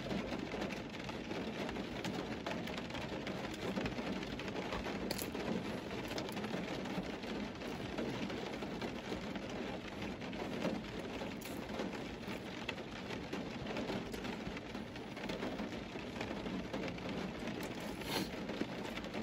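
A steady, even hiss with a fine crackle running through it, without much change in level.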